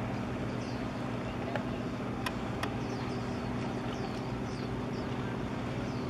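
Steady low drone of a vessel's engines, a hum of several steady low tones. Small high chirps, like birds, come and go over it.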